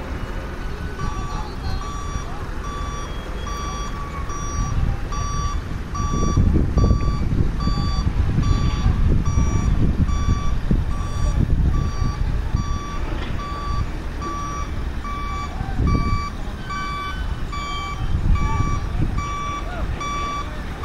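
A vehicle's reversing warning beeper sounding repeatedly, about two short beeps a second, over the low rumble of heavy diesel machinery. The rumble grows louder about six seconds in and swells again near the end.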